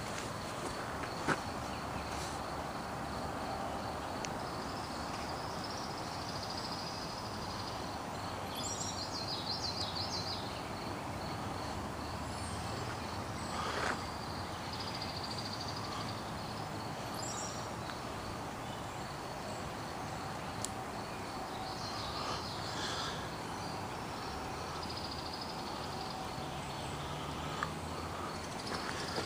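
Outdoor ambience of insects trilling steadily, with a few bird chirps now and then and a few faint clicks.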